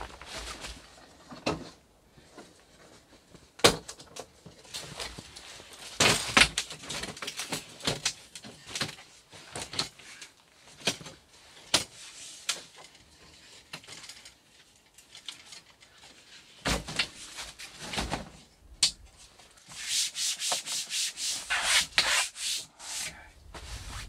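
Folding camping table with a metal frame being unfolded and set up: the legs and frame clack and knock, and the tabletop rubs and scrapes. A run of quick rasping strokes comes near the end.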